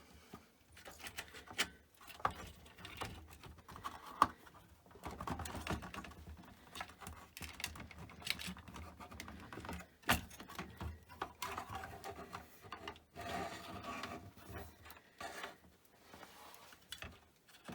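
Clicks, knocks and rattles of metal and plastic parts and tools being handled while working on a BBC Model B's power supply, with a few longer stretches of rattling.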